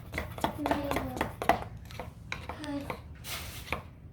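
A utensil stirring glue slime in a bowl, knocking and scraping against the bowl in quick, irregular clicks as the contact lens solution activates it.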